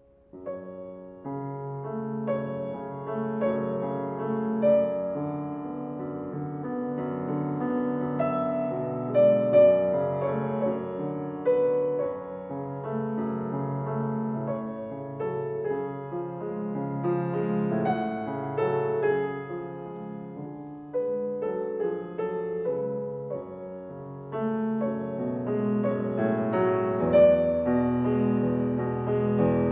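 Piano music that starts suddenly and plays throughout, with a deeper bass note coming in near the end.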